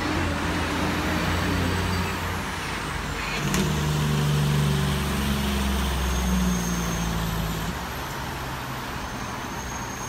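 Road traffic from the street below, with a large vehicle's engine running low and steady; it grows stronger about a third of the way in and fades away near the end.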